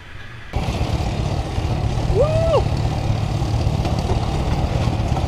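Wind and road noise while riding a 115cc scooter, a steady low rumble that starts abruptly about half a second in. About two seconds in a short tone rises, holds and falls.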